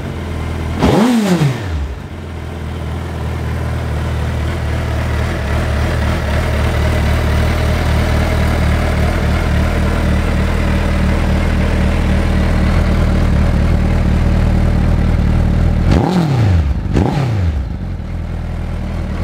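2010 Suzuki GSX1300R Hayabusa's inline-four engine running through Yoshimura dual oval end cans, idling nice and throaty. It gets a quick throttle blip about a second in and two more in quick succession near the end, each revving up and falling straight back to idle.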